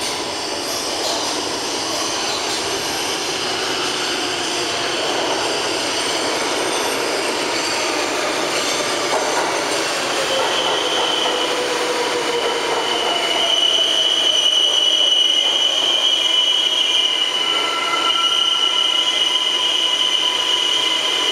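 New York City subway R142A train pulling into a station and braking, its running noise growing louder. A whine falls in pitch as it slows, and from about ten seconds in the wheels squeal in a high, steady tone.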